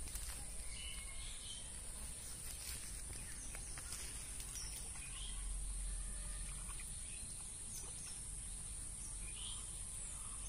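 Pond-side ambience: a steady high-pitched insect buzz with short bird chirps here and there, and faint drips and splashes as a wet cast net is hauled up out of the water by hand.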